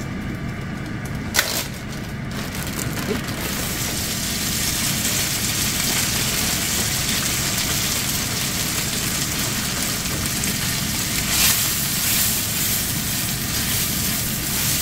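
Cooked egg noodles hitting a skillet of hot browned butter: a brief sharp click about a second and a half in, then steady sizzling that sets in a few seconds in and carries on as a spatula stirs the noodles through the butter.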